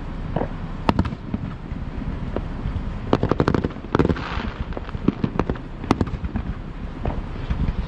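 Aerial fireworks going off: a string of sharp bangs and pops, thickest about three to four seconds in, with a short crackling stretch just after, over a steady low rumble.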